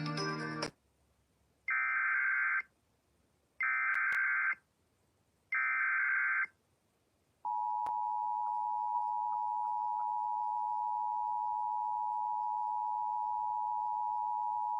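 Emergency Alert System alert opening: music cuts off under a second in, then three bursts of SAME header data tones of about a second each, then the steady two-tone EAS attention signal held about eight seconds, which signals that a warning message, here a severe thunderstorm warning, follows.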